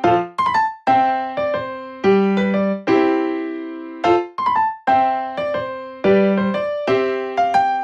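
Background music: a light piano tune of struck notes that repeats its phrase about every four seconds.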